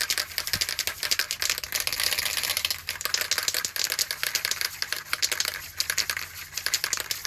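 Aerosol spray-paint can shaken hard, its mixing ball rattling inside in a fast, steady stream of clicks.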